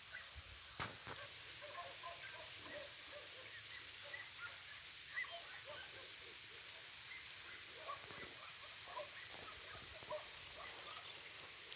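Light rain falling on a puddled dirt yard: a steady faint hiss with many small scattered plinks of drops hitting standing water. One sharp knock sounds about a second in.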